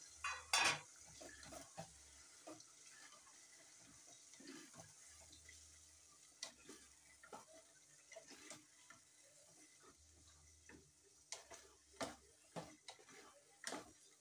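Light, scattered clicks and knocks of an aluminium cooking pot being handled on a gas stove, with a cluster of them near the start and several more near the end.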